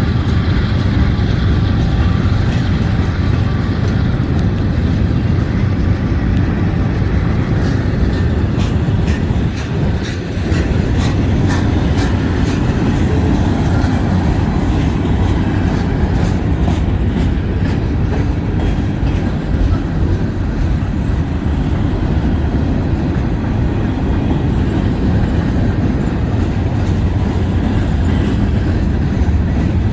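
Freight train cars rolling past at close range in a loud, steady rumble, with wheels clacking over the rail joints.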